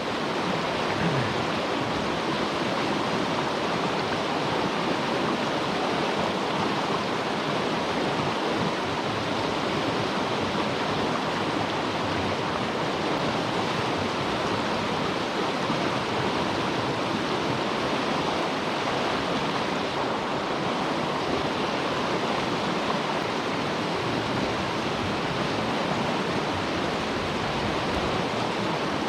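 Steady, even rushing noise with no distinct events, typical of outdoor water ambience such as surf on a bay shore.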